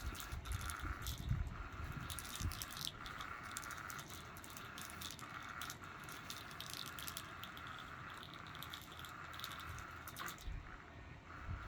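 A cat toy whirring on the floor, with a steady whir underneath many irregular rattles and clicks.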